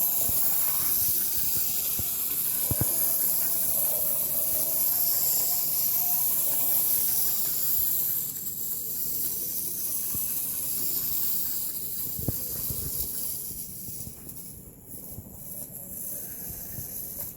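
Clockwork wind-up toy train running along the track set into a book's pages: a steady high-pitched whirr from its spring motor with a few light clicks. It grows quieter about halfway through as the lightly wound spring runs down.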